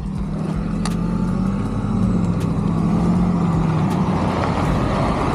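Motorcycle engine running, with a rushing noise that grows louder about two seconds in.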